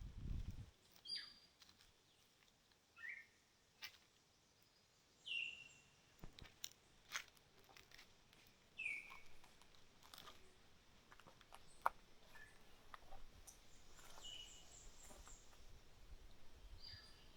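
Wild birds calling faintly: short high chirps that fall in pitch, repeated every few seconds, with one quick trill a little past the middle. A few faint sharp clicks come in between.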